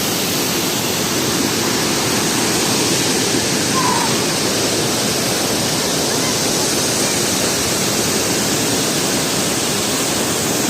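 Waterfall swollen with rain, its falling water making a loud, steady rush of noise.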